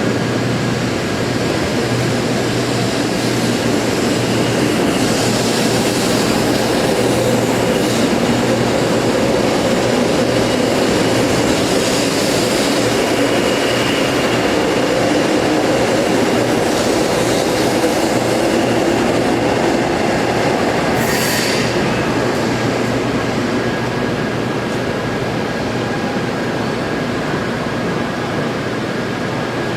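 0 Series Shinkansen train running: a steady rumble of wheels and running gear with slowly shifting whine tones, and a brief hiss about 21 seconds in. The sound eases off slightly near the end.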